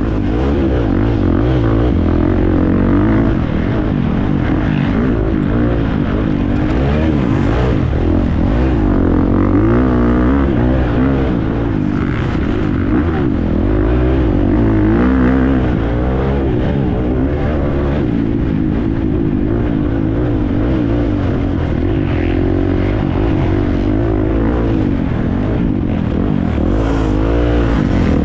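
Husqvarna FC350 four-stroke single-cylinder motocross engine running hard under race load, its pitch rising and falling continuously as it revs up and shifts.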